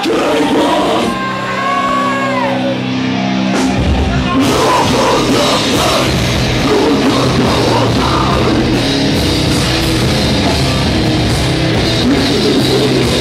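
A heavy metal band playing live: a held chord rings at first, then about four seconds in the full band comes in with drums and heavy guitars.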